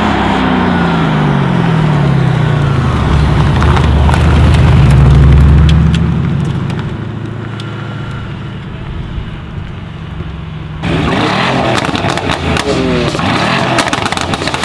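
Mercedes-AMG GT R's twin-turbo V8 running as the car drives past, its pitch falling over the first few seconds, loudest about five seconds in, then fading as it drives away. About eleven seconds in it gives way abruptly to another Mercedes engine, its revs rising and falling.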